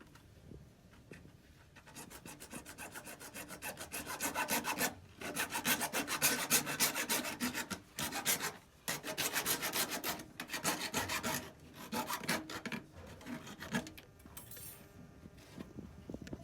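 Rapid back-and-forth rasping strokes of a hand tool working a plastic drain pipe, in several bouts broken by short pauses.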